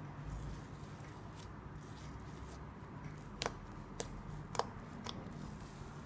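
Homemade cloud slime being handled by hand, quiet apart from four short clicks about half a second apart in the second half.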